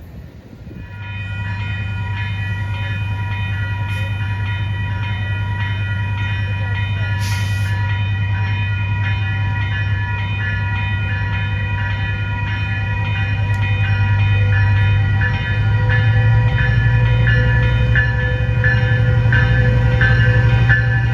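A train approaching: the diesel locomotive's low engine drone starts about a second in and grows steadily louder. A set of steady high tones rings over it, pulsing regularly in the second half.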